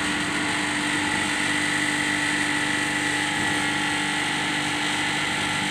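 Steady drone of running workshop machinery, a low hum with a higher whine over it, neither changing in level or pitch.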